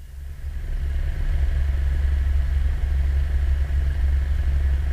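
Cessna 172's piston engine and propeller running at taxi power, heard from inside the cabin as a steady low drone that grows louder about a second in.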